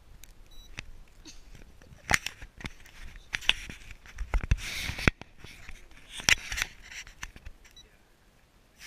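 Handling noise from a handheld camera being swung about: scattered sharp knocks and clicks with rustling against the microphone, loudest in the middle.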